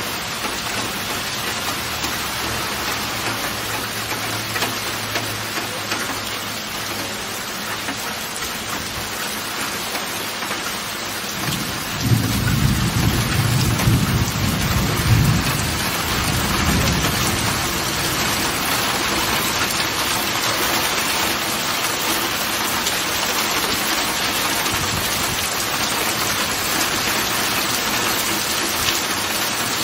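Heavy rain falling steadily, with a rumble of thunder about twelve seconds in that lasts several seconds.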